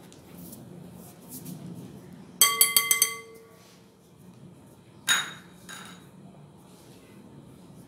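A metal mesh sieve tapped against the rim of a glass mixing bowl to shake out powdered sugar. About two and a half seconds in there is a quick run of about five ringing clinks, with the glass ringing on briefly after. About two and a half seconds after that comes one more knock.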